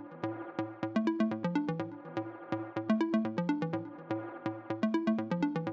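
Electronic background music with a steady beat: short synth notes over a bass line.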